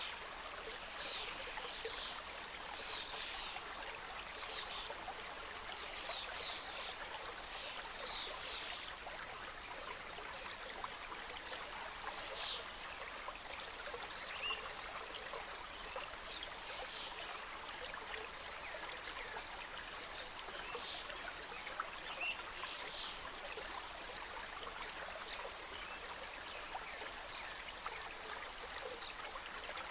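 Mountain stream running over rocks: a steady rush of water, with brief high chirps scattered over it, most of them in the first eight seconds and again a little past the middle.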